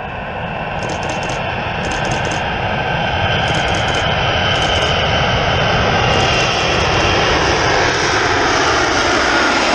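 Two F-35B Lightning II jets, each with a single Pratt & Whitney F135 engine, on a slow short-landing approach: a steady jet roar that grows louder as they close in, with a whine that slowly falls in pitch.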